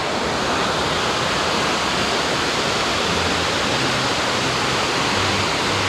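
The Rhine Falls, a large river waterfall, making a steady, dense rush of falling water.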